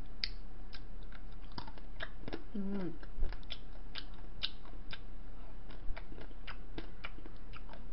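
Close-miked eating sounds of soft shaved-ice dessert and cream: irregular wet lip smacks and small mouth clicks. A brief hummed "mm" comes about two and a half seconds in, over a low steady electrical hum.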